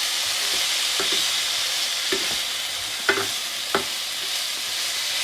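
Food sizzling in hot oil as it is stir-fried in a pan, with a few short knocks of the spatula against the pan over the steady sizzle.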